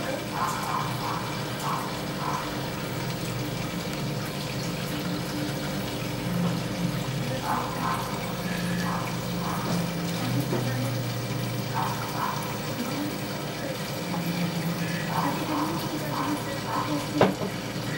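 Hang-on-back aquarium filter running, water trickling steadily from it into the tank, with a single sharp click near the end.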